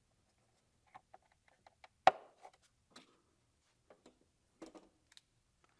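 Light clicks and knocks of plastic engine parts being fitted by hand: an electrical connector being plugged in and an air intake being seated on a 2.4 Ecotec's throttle body. There is one sharp click about two seconds in.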